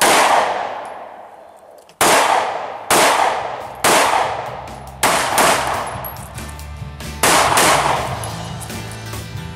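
A string of handgun shots, about eight at uneven intervals, each sharp crack fading over about a second. Rock music with a steady bass line runs underneath from about halfway.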